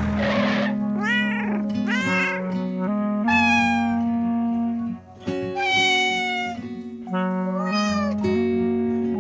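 A cat meowing about five times over background music, the third and fourth meows long and falling in pitch.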